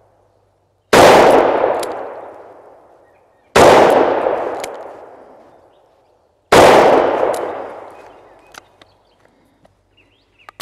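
Three shots from a Taurus Judge revolver firing .410 #4 birdshot shells, about three seconds apart, each report trailing off over about two seconds. A few faint clicks follow near the end.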